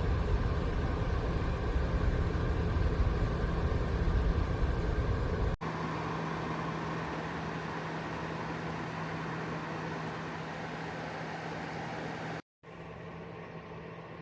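BLACK+DECKER portable fan-forced space heater running: a steady whir with a constant hum. It plays in edited segments, with hard cuts about five and a half seconds and twelve and a half seconds in. The first segment has a heavy low rumble, and each later segment is quieter.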